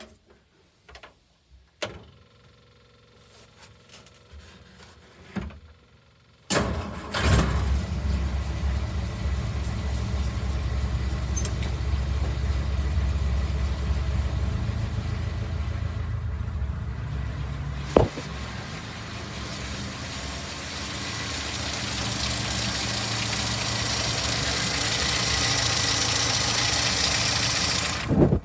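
A 1957 Land Rover 109's 2-litre four-cylinder petrol engine, just after a carburettor rebuild, catches suddenly after a few quiet clicks and runs steadily. From about twenty seconds in it grows gradually louder and brighter, then cuts off abruptly near the end.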